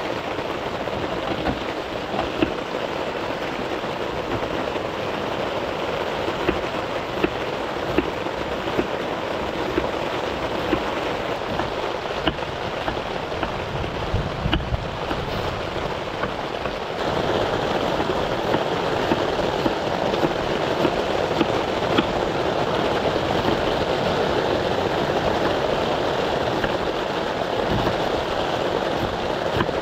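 Heavy rain pattering steadily on a tent, with sharp drop impacts ticking through it; it gets louder a little past halfway.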